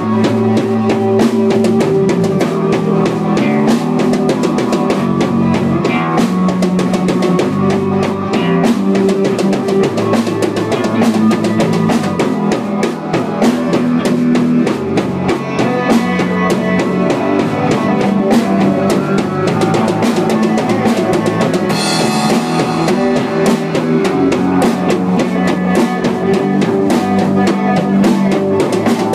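A three-piece band jamming: a drum kit with bass drum and snare keeps a steady, dense beat under sustained bass notes and guitar.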